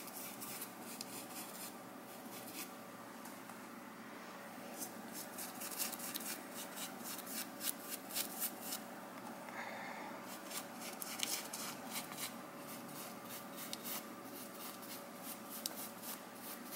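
Faint scratchy strokes of a small plastic-bristled brush working a thick stain-treatment paste into a shirt's fabric, coming quicker and louder from about five seconds in.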